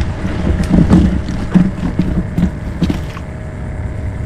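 Handling noise in a kayak as heavy braided fishing line is pulled by hand out of mangrove branches: several knocks, scrapes and rustles in the first three seconds, then quieter, over a steady low rumble.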